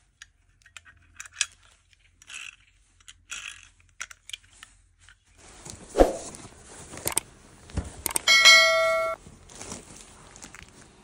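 Plastic toy guns and their packaging being handled during unboxing: scattered clicks and rustles, then a sharp knock about six seconds in. About eight seconds in comes a short ringing tone of several steady pitches, lasting about a second.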